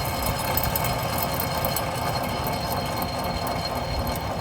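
Worn rear hub bearing of a 2007 Buick Lucerne spinning freely, giving a steady, rough rumble. The noise marks the bearing as bad, one that needs replacing.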